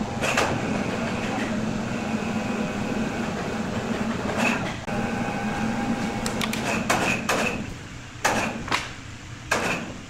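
A woodworking saw machine runs with a steady hum, and wood blocks knock and clatter sharply several times. The hum drops away about three quarters of the way through, leaving a few last knocks.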